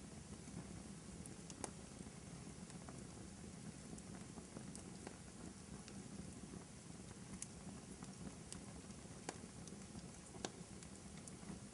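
Fire crackling in a fireplace: a steady low rustle of burning with scattered sharp pops every second or two.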